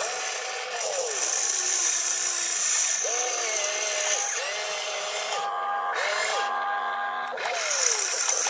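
Electric motors of a radio-controlled toy excavator whining as the boom, arm and bucket move. Each movement brings a whine that rises quickly, holds its pitch, then falls away as the motor stops, several times over.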